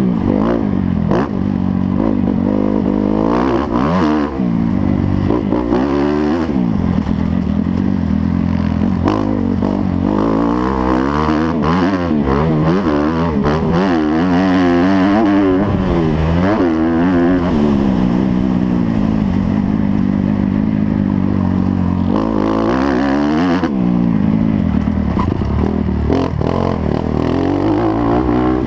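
Motocross motorcycle engines running hard, their pitch rising and falling over and over with throttle and gear changes.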